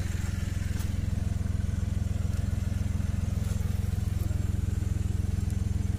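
Tractor diesel engine running steadily at an even speed, a low, rapid chugging that does not rise or fall.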